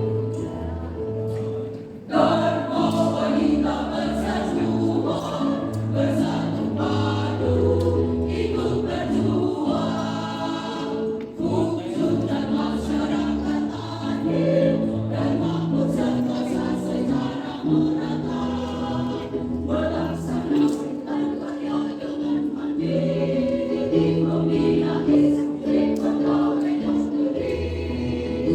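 A choir singing in harmony, with a brief dip about two seconds in before a louder phrase starts.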